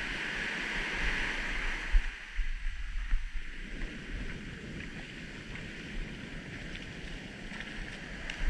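Surf washing in over the beach as a steady foamy hiss, with gusts of wind buffeting the microphone.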